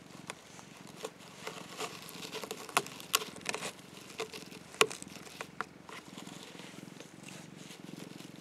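Domestic orange tabby cat purring steadily, with a run of sharp crackles and scratches from about one to six seconds in, loudest near five seconds, as it rolls and its paws and claws work against the sisal of the cat tower.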